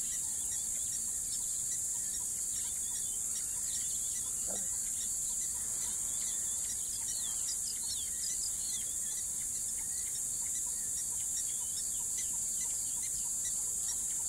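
Steady, high-pitched chorus of insects, with many short bird chirps and calls scattered over it.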